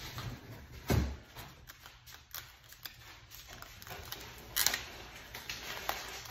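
Handheld packing-tape gun being handled and loaded with a roll of tape: scattered small clicks and rattles, a dull thump about a second in, and a short scraping rasp a little past four and a half seconds.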